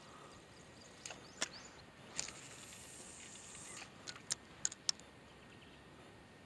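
Spinning reel being cranked while a lure is fished in: a soft, high whir for about a second and a half, with several light clicks before and after it.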